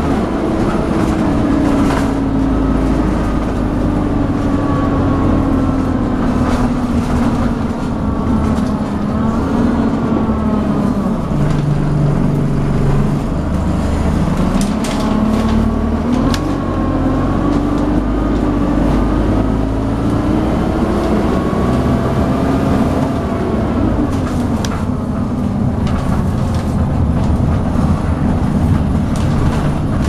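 Dennis Dart SLF bus heard from on board while under way, its diesel engine worked hard, with a hoover-like whine above the engine drone. The engine's pitch falls and rises several times as the bus slows and pulls away again, over road and body noise, with a few knocks around the middle.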